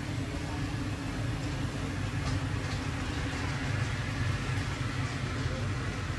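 Steady low rumble and hum of background ambience, with a few faint clicks and knocks on top.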